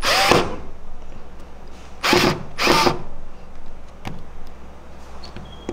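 Bosch GO 2 cordless screwdriver's motor running in three short bursts, each rising in pitch as it spins up. It is set going by pushing the bit against a door-hinge screw to back the screw out.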